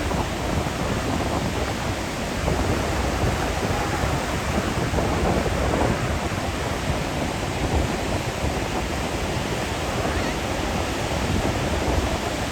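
Ocean surf breaking and washing in steadily, with wind buffeting the microphone.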